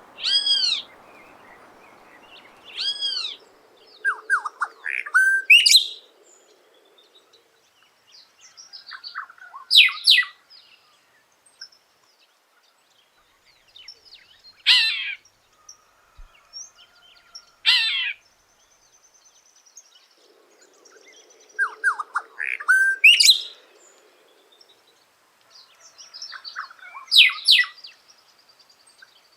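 An encontro (variable oriole) singing in short phrases a few seconds apart. The phrases mix clear arched whistles with quick sharp notes, and the same phrase pattern comes round again later.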